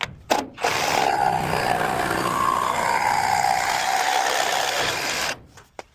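Power saw cutting through the ends of a wooden roof truss, running under load with a wavering whine. It starts just under a second in and stops about a second before the end.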